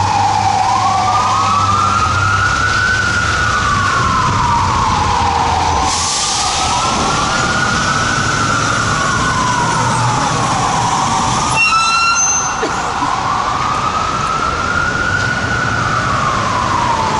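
Fire truck sirens on a slow wail, the pitch rising and falling about every four seconds, with a second siren sweeping slightly out of step, over diesel engine rumble. A brief pitched blip cuts in about twelve seconds in.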